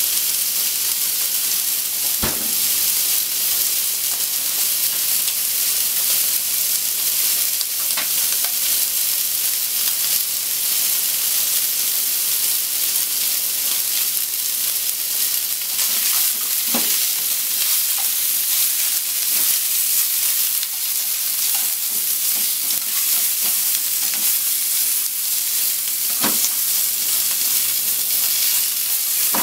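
Cubes of pork belly sizzling in a frying pan: a steady frying hiss with an occasional sharp pop of spitting fat.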